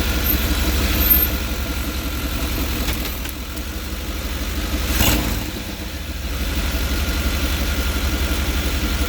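Chevrolet 5.7-litre TBI V8 idling steadily, heard with the interior engine cover off, running louder than normal, which the owner puts down to an exhaust leak somewhere in the engine compartment. A sharp click about five seconds in.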